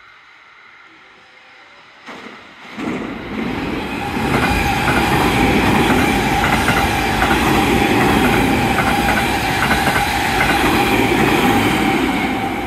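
JR West 281 series Haruka limited express running through the station at speed. The noise swells sharply about two seconds in, then comes a loud, steady rush of the passing cars with wheels clacking over the rail joints and a steady whine. It eases slightly near the end.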